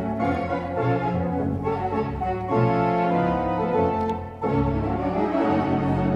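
Theatre organ played live, sustained full chords changing every second or two, with a short break about four seconds in before the next chord.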